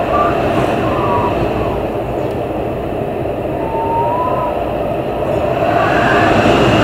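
Storm-force wind blowing hard and steadily, with a few brief whistling tones, a short one about a second in and a longer one around four seconds in, swelling slightly near the end.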